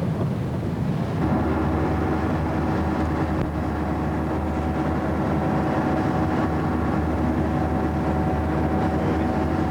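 An engine running steadily, a low drone with a constant pitch that grows louder about a second in and then holds.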